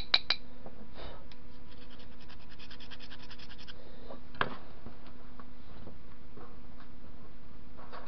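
Metal-on-metal clicks from a tool worked against a rusted brake caliper. A few sharp clinks at the start give way to a fast run of ticks lasting about two seconds, then scattered single clicks, over a steady low electrical hum.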